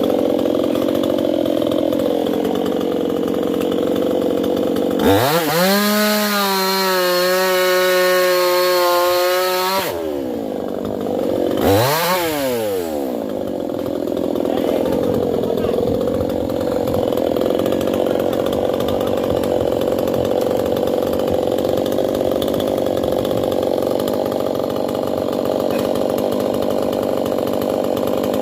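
Stihl two-stroke chainsaw running at idle, revved up to high speed for about five seconds and dropped back, then given a second short blip of the throttle.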